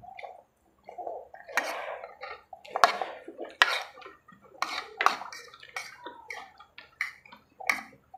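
Close-miked eating sounds: spaghetti noodles slurped in and chewed, with wet lip smacks and mouth clicks coming irregularly, about one or two a second.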